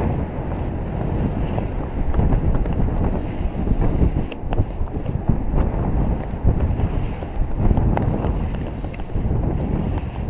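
Airflow of paraglider flight buffeting the camera's microphone: a loud, gusty rumble of wind noise that rises and falls.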